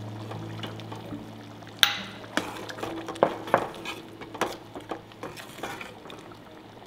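A metal ladle stirring salt into thick chicken curry in a metal pot, knocking against the pot several times; the first knock, about two seconds in, is the loudest. Soft background music plays under it.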